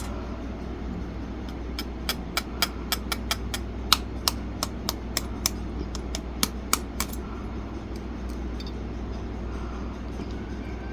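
A run of sharp, light clicks and taps of small hard objects knocking together, some two or three a second, over a steady low hum. The taps stop about seven seconds in.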